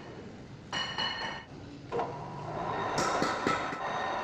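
A metal lathe starts up about two seconds in and runs with a steady whine, with a quick series of sharp ticks near the end. Before it, a brief metallic ringing clink.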